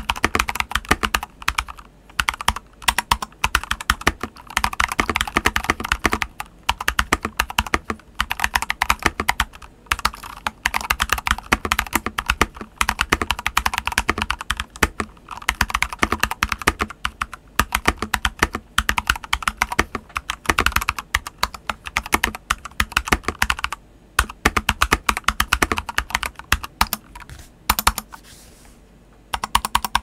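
Mechanical keyboard typing: a stock CIY Tester 84 R2 with AEBoards Naevy R2 linear switches and SA profile doubleshot ABS keycaps, keys pressed in quick runs of clacks with short pauses between and a longer lull near the end.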